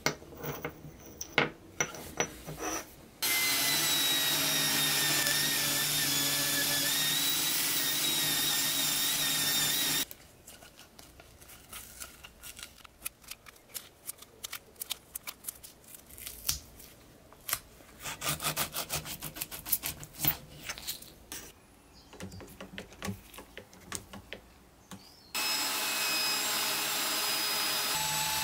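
Small metal parts clicking and clinking, then a power tool running steadily for about seven seconds. A long stretch of irregular scraping and taps follows as a steel rod is rubbed with sandpaper by hand. About 25 seconds in a drill starts, spinning a new stainless steel axle rod in its chuck while sandpaper is held against it.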